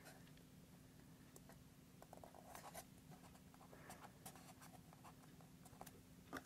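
Faint rustling and light scratching of fingertips pressing and smoothing thin decoupage tissue paper onto a glued wooden block, over a low steady hum, with one sharp tap near the end.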